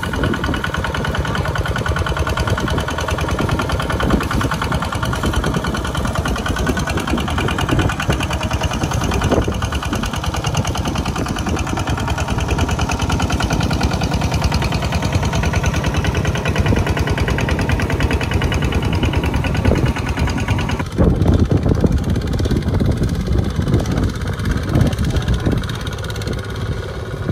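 Single-cylinder diesel engine of a two-wheel walking tractor running hard as it drags a loaded rice trailer through deep mud. A little over two-thirds of the way in, the sound changes abruptly to another walking tractor's engine chugging through the mud.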